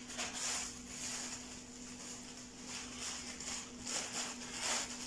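Plastic packaging bags rustling and crinkling in irregular swishes as clothes are handled and unwrapped, over a faint steady low hum.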